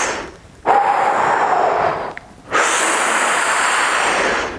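Deep, audible breathing close to the microphone: two long breaths of about one and a half seconds each, with short pauses between, taken while holding a stretch.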